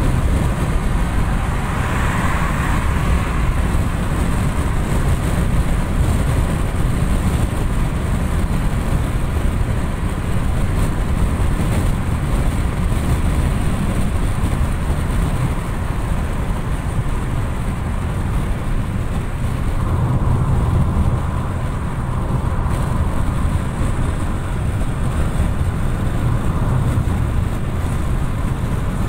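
Steady road and wind noise from a car cruising at highway speed, heard inside the cabin: a dense low tyre rumble with hiss above it. It swells briefly a couple of seconds in and again about twenty seconds in.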